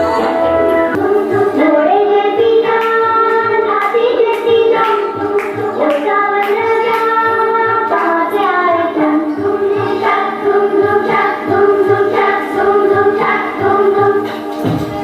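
Recorded song with a group of voices singing over backing music with a steady beat.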